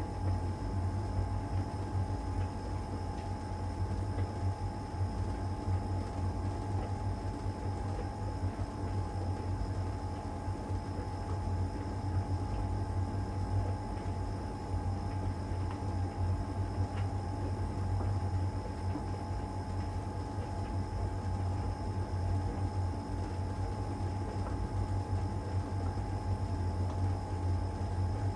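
LG heat pump tumble dryer running steadily in its cupboard-dry stage: a constant low hum with a steady higher whine as the drum turns the laundry.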